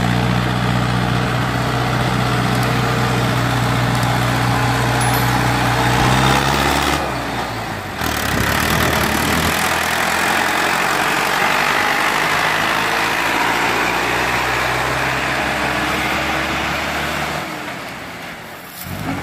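Tractor diesel engines hauling loaded sugarcane trolleys. First a steady, low engine drone as a tractor approaches; then, after a break about seven seconds in, a Mahindra Arjun 605 DI passes close, its engine heard under the road noise of the heavy trolley tyres, fading near the end.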